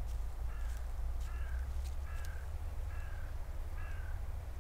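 A bird calling five times, about once a second, each call short, over a steady low rumble.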